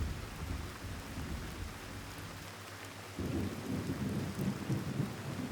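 Steady rain falling with low rumbles of thunder: one fades just after the start, and another builds about three seconds in.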